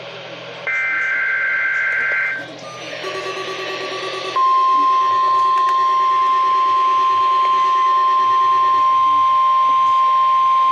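NOAA Weather Radio test signal: the last screeching SAME digital header burst for about a second and a half, then, about four seconds in, the steady 1050 Hz warning alarm tone comes on and holds.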